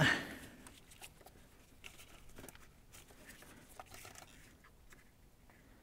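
Faint rustling and small scattered clicks of nitrile-gloved hands working the rubber boot on the alternator's battery terminal.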